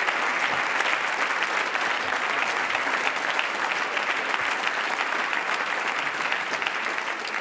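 Applause from a crowd of many people clapping their hands, holding steady and easing slightly near the end.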